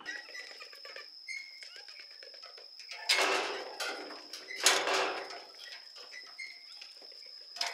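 Goats' hooves clattering on a livestock trailer's floor and metal step as they jump out, with two louder clatters about three and five seconds in. A steady high-pitched tone sounds in the background throughout.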